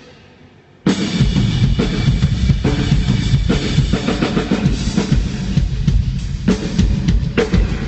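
Live drum kit playing through the PA at a band soundcheck. It starts suddenly about a second in and keeps a steady beat of bass drum and snare.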